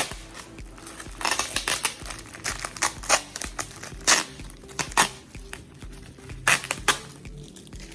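Packaging crinkling and rustling as it is handled and pulled apart, in irregular bursts of sharp crackles.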